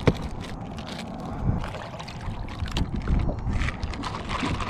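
Water lapping and gurgling against a kayak hull, with wind on the microphone. A sharp knock right at the start and a few softer knocks follow as gear is handled in the kayak.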